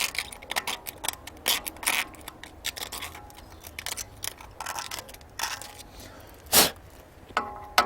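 A screwdriver scratching rust out of the 17 mm hex socket of a wheel hub's axle bolt: a run of short, irregular metal scrapes and clicks. A louder knock comes about six and a half seconds in, and a brief metallic ring near the end.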